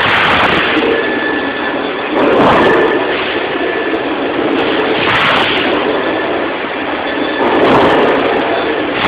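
Band saw blade cutting through a 100 mm stainless steel 304 bar on a dual-column band saw. It makes a steady machine noise with a thin high whine, swelling louder about every two and a half seconds.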